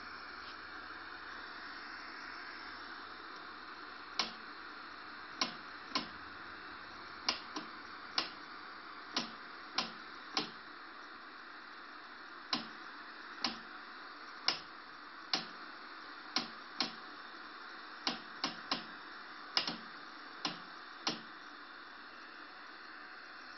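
Transistorised 1977 National FH-12PR television tuned to no station, its speaker hissing with steady static. Irregular sharp clicks, about twenty of them, come through the hiss from about four seconds in.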